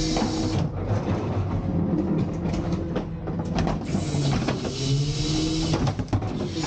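Garbage truck's engine and hydraulics running at the hopper of a rear-end loader. The plastic wheeled carts knock and clatter against the tipper as one is set down and the next is hooked on. About four seconds in, the engine revs up with a rising hydraulic whine as the cart tipper lifts and dumps the next cart.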